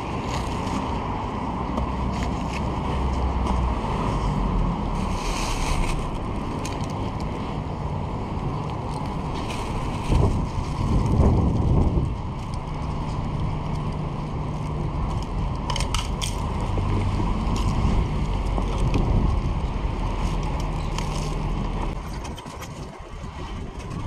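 Steady wind and road noise while riding an e-bike through city traffic, with a low rumble underneath. The noise swells louder for a couple of seconds about ten seconds in.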